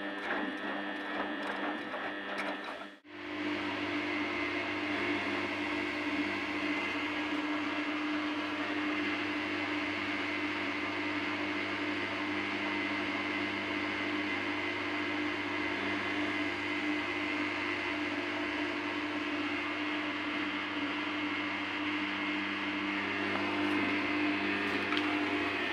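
Front-loading washing machine spinning its drum, with the load in on a cotton programme with an 800 rpm spin: a steady motor whine over the hum of the drum. The sound drops out briefly about three seconds in, and the whine edges slightly higher near the end.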